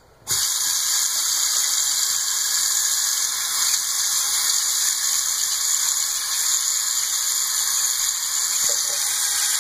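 Tap switched on about a third of a second in, then water running steadily into a sink with an even hiss.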